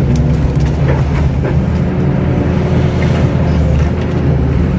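KATO hydraulic excavator's diesel engine running steadily, with a few faint knocks in the first second or so.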